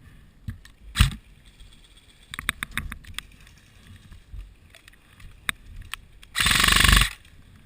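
An airsoft electric gun fires a short full-auto burst lasting about half a second near the end. Before it come scattered sharp clicks and knocks, a loud one about a second in and a quick cluster of them around the middle.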